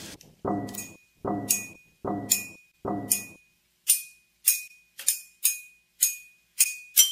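Music of evenly spaced struck, clinking notes. The first four carry a fuller low ring and come a little under a second apart, then only high chiming strikes follow, slightly faster. A quick jingling beat starts just at the end.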